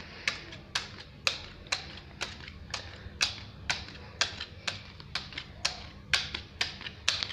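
Neapolitan playing cards dealt one at a time into three piles on a stone surface, each card landing with a sharp click, about two a second in an even rhythm.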